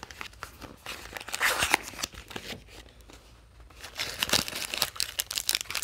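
Small paperboard snack-bar box being torn open by hand, with crackly tearing and crinkling of the packaging in two busy spells, about a second in and again from about four seconds in.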